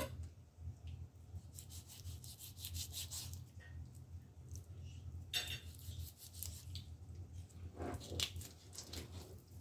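Kitchen knife slicing and scraping through raw chicken to trim off the fat, with soft rubbing and scattered small clicks of the blade and hands on the meat, over a low steady hum.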